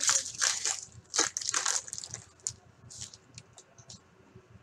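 Foil wrapper of an SP Authentic hockey card pack being torn open and crinkled in the hands, a dense crackle for about two seconds. Softer rustles and small clicks follow as the cards are handled.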